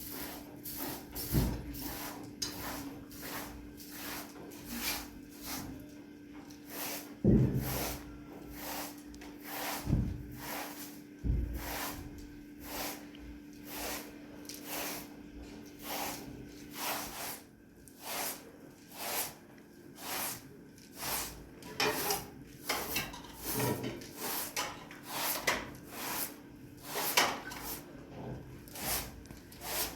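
Rhythmic scraping or rasping strokes, about three every two seconds, with a few heavier knocks in the first half and a faint steady hum that stops about halfway through.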